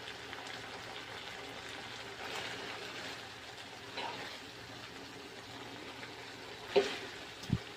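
Ground-meat-and-bean dish simmering in a pan with a steady hiss. A faint knock comes about halfway through, then a sharp clink and a dull knock near the end, like a utensil or lid against the pan.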